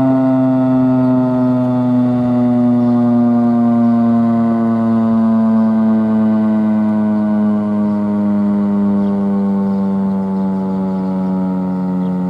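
Federal Signal STH-10 tornado siren sounding a loud, steady tone whose pitch slowly falls throughout, as the siren winds down.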